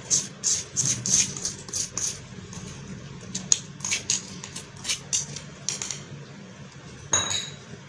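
Light, irregular clinks and taps of a glass bowl as powdered milk is shaken out of it over flour in a steel tray, about two or three a second, with a louder short scrape about seven seconds in.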